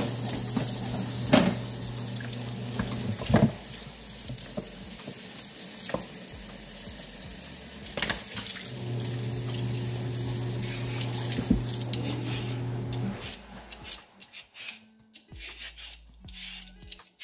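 Tap water running into a sink while a sweet potato is rinsed over an aluminium pot, with a steady low hum and a few knocks. About 13 s in, the water stops, leaving short scraping sounds of a knife peeling the sweet potato.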